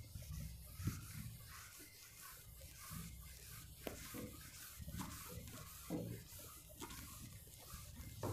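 Faint scratching of a pen or marker writing, with a few light taps and knocks.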